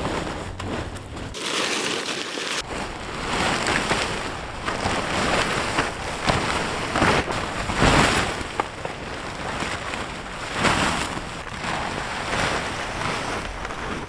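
Gusty wind in a snowstorm, buffeting the microphone with a deep rumble; it rises and falls in gusts and is strongest about eight seconds in.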